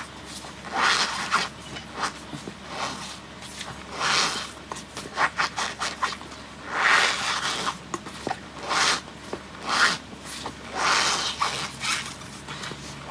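Cornstarch being squeezed and pressed, making a run of squeaky crunches about one a second. Some are drawn-out rubs and others short, sharp squeaks.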